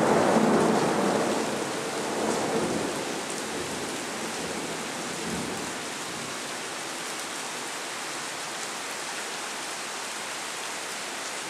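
Thunderstorm: a rumble of thunder dying away over the first few seconds, with a smaller swell about two seconds in, then steady rain.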